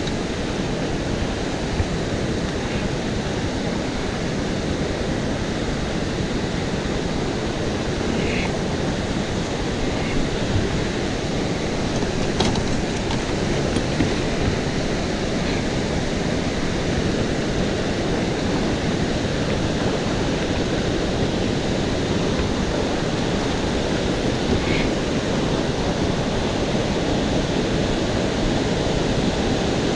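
Steady rushing roar of a waterfall, growing slightly louder near the end.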